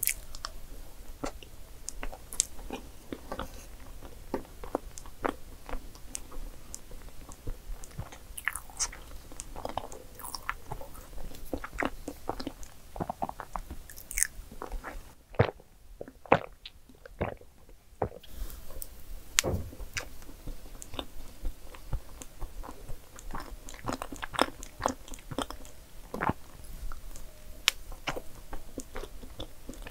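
Close-miked mouth sounds of eating Godiva dark chocolate cake: chewing, with many sharp wet clicks and smacks. About midway the chewing thins out for a few seconds while she sips coffee through a straw.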